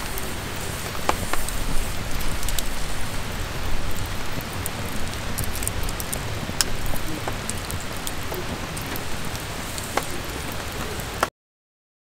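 Wood campfire crackling: scattered sharp pops over a steady hiss and low rumble. It cuts off abruptly near the end.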